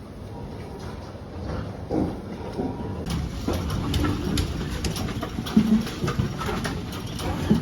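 Piglet hiccupping: short, sudden sounds a second or two apart, over clicking and rustling.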